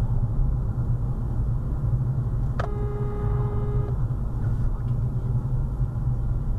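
Steady low road and engine rumble inside a 2020 Renault Clio's cabin as it drives along a wet road. About a third of the way through, a single pitched tone sounds for just over a second.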